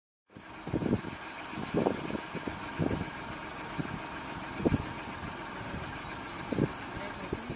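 Car engine idling steadily after a short gap of silence at the start, with several brief louder low thumps or surges spread through it.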